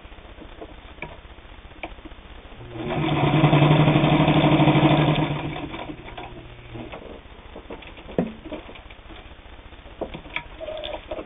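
Singer 66 sewing machine with all-steel gear drive, stitching through two layers of split leather. It starts about three seconds in, runs at a fast, even stitching rhythm for a few seconds, then slows to a stop. A few light clicks follow.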